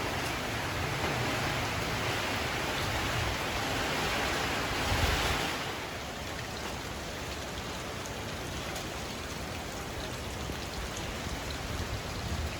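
Typhoon wind and rain in a steady rush, with wind buffeting the microphone. A gust swells to a peak about five seconds in, then eases off.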